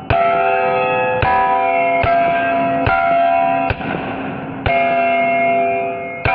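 9mm M&P pistol shots striking a hanging steel plate target, seven shots roughly a second apart. Each crack is followed by the steel plate ringing with a bell-like tone that fades until the next hit; one shot near the middle gives hardly any ring.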